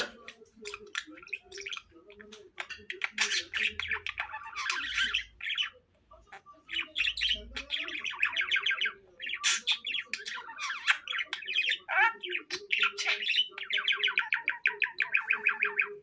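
Budgerigar warbling: fast chattering runs and short squawks that come in bursts of a second or two, with short pauses between.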